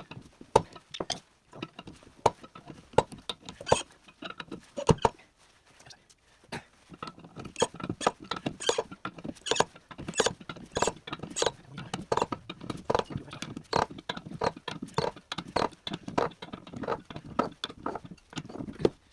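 A wrench cranking a steel bearing puller, giving off sharp metallic clicks: scattered at first, then after a short pause a steady run of two or three clicks a second. The puller is drawing out a seized bearing.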